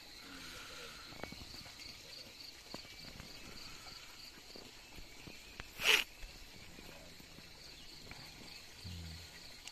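Crickets chirping in a steady high pulsing rhythm, with a short loud rush of noise about six seconds in.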